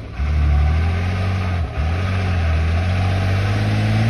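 Steyr expedition truck's diesel engine pulling hard under load as it drives at a steep gravel hill. The engine note breaks off briefly about one and a half seconds in, then runs on steadily and climbs in pitch at the very end.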